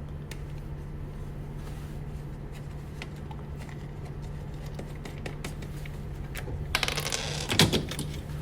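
Hard metal and plastic parts of a range's front control panel clicking and clinking as they are handled, with a louder clatter about seven seconds in.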